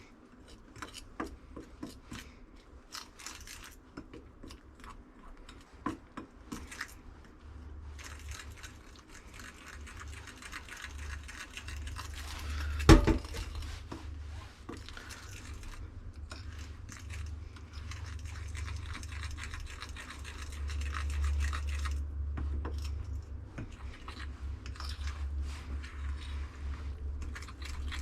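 Kitchen prep sounds: a utensil scraping and rubbing against cookware, with scattered small clicks and one loud knock about halfway through. A low hum comes in about a quarter of the way in and runs under the rest.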